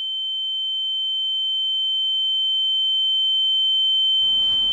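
A steady, high-pitched electronic tone that grows gradually louder, with a fainter lower tone beneath it. About four seconds in, the lower tone stops and room noise comes in under the high tone.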